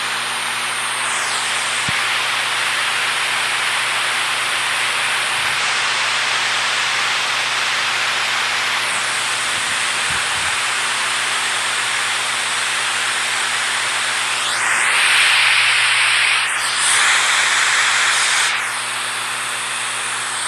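Steady rushing water, an even hiss, swelling louder twice near the end.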